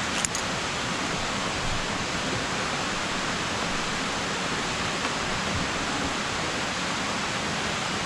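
Steady rushing of a waterfall cascading over rocks. A short click about a quarter second in, as a motorcycle helmet's chin-strap buckle is undone.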